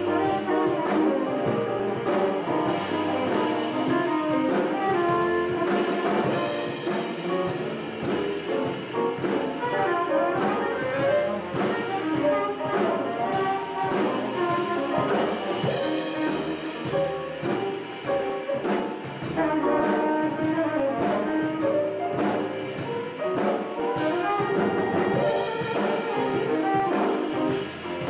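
Live jazz band playing a blues: a tenor saxophone plays the lead line over piano, upright bass and drums, with cymbal strokes keeping a steady beat.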